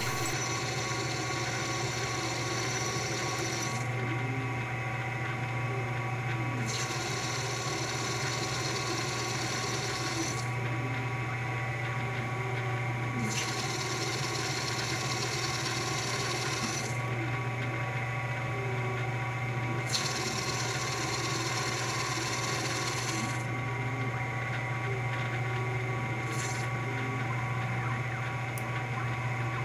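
ShopTask lathe-mill combo running a CNC boring pass with an 8 mm boring bar inside a 7000-series aluminium billet: a steady motor and spindle hum, with the hiss of the cut coming and going in stretches of about three seconds as the bar makes repeated passes.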